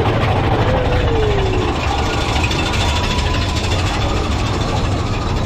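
Big Thunder Mountain Railroad mine-train roller coaster running along its track, heard from a rider's seat: a steady low rumble of the wheels on the rails.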